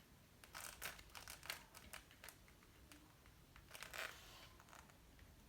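Faint handling noise: a run of soft clicks and rustles in the first couple of seconds, then another brief rustle about four seconds in, otherwise near silence.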